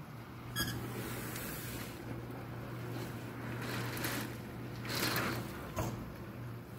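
Storm wind and rain beating against a screened window, the rushing noise swelling in three gusts, with a couple of sharp taps on the window.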